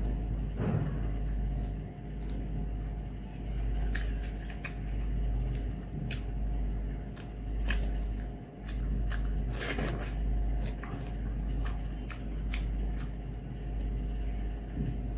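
Hand-eating sounds: fingers squishing and mixing rice with egg fry and curry on a metal plate, and mouth sounds of biting and chewing, with many short wet clicks and smacks. A steady low hum runs underneath.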